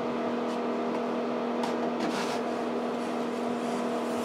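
A wide steel drywall taping knife scrapes joint compound across the wall in a few faint strokes, about two seconds in. Under it runs a steady low hum.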